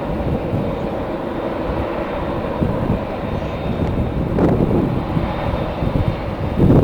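Jet airliner engines running, a steady rumble with a faint high whine, with gusty wind buffeting the microphone.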